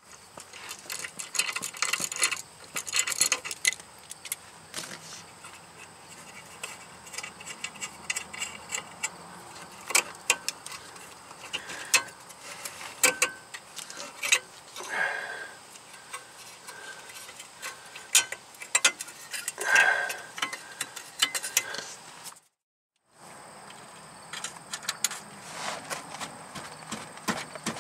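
Hand tools working on the steering rack mounting bolts under a car: a socket wrench clicking and metal clinking against metal in irregular sharp clicks and rattles, with a brief break near the end.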